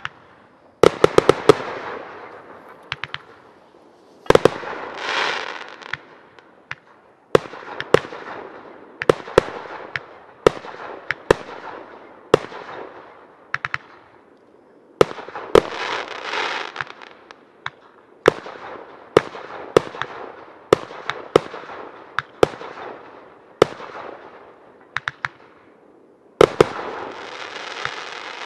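Fireworks display: aerial shells bursting with sharp bangs every second or so, sometimes several in quick succession, with some bursts trailing off in a crackle lasting a second or two.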